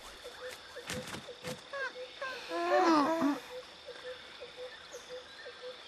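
Cartoon baby marsupilamis making short squeaky chirps and a longer babbling call about two and a half seconds in, over a faint, regular ticking about four times a second.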